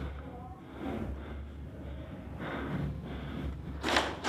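A person breathing hard close to the microphone over a steady low rumble, with one sharp, loud noisy burst near the end.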